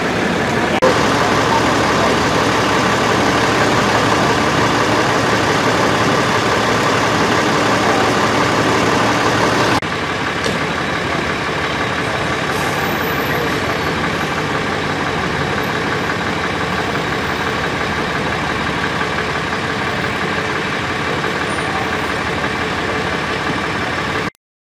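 Emergency vehicle engines idling, a steady rumble with a faint hum. It drops slightly in level about ten seconds in and cuts off abruptly just before the end.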